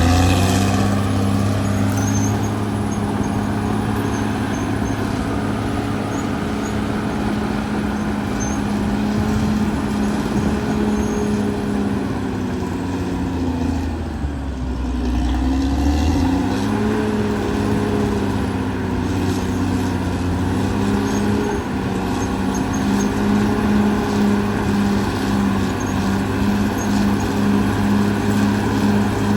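Caterpillar D6R XL bulldozer's diesel engine running under load. About halfway its note sags and then climbs back up, and near the end it pulses about twice a second.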